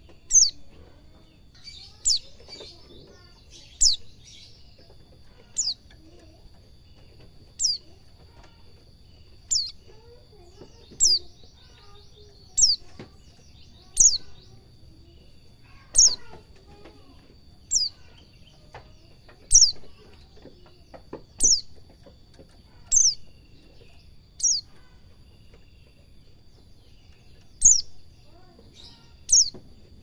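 White-eye (pleci) calling: short, sharp whistles that slide steeply downward, repeated about every one and a half to two seconds, with a brief buzzy chatter a few seconds in.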